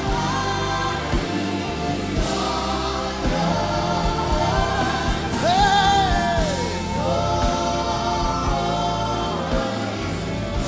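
Gospel worship song: a choir holds long sustained chords over a band with a steady bass and drum beats, and a lead voice sweeps up and then down in the middle, calling out "Hey."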